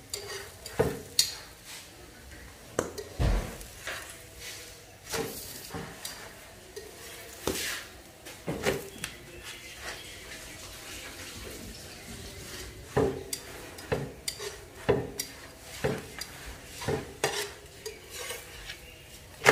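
Metal tongs clinking and scraping against an iron pan as a roti is turned and pressed, in irregular knocks about once a second, over faint sizzling. There is a quieter stretch about halfway through.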